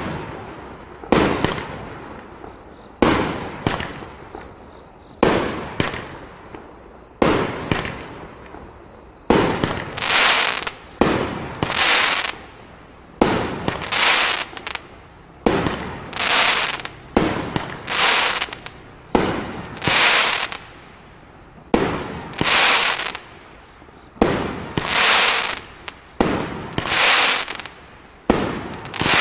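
Wild Dragon 'Fishtail' 500-gram consumer firework cake firing shot after shot, about one a second, each a sharp report followed by a longer crackling tail as the crackling stars break.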